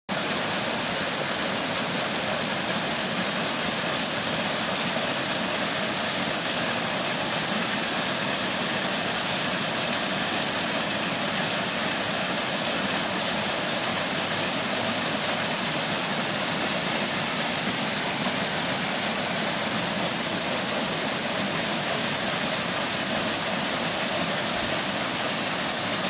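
Small waterfall on a stream splashing onto rocks and a shallow pool: a steady, unbroken rush of falling water.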